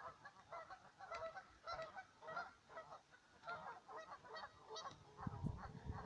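A flock of geese honking, many short calls overlapping several times a second. A low rumbling noise comes in near the end.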